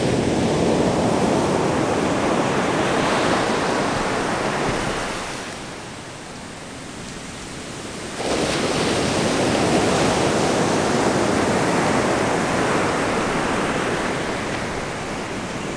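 Ocean surf breaking and washing on the beach, a steady rush with wind on the microphone. It grows softer a little past a third of the way in, then comes back abruptly just past the middle.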